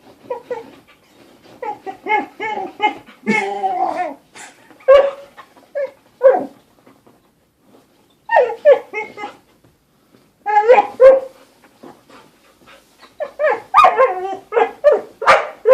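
Dog barking and whining in several bouts with short pauses between, busiest near the end.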